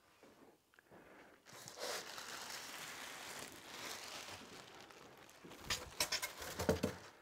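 Clear plastic wrapping being pulled off a portable fridge/freezer and crinkling, with a few short knocks and rustles of handled packing near the end.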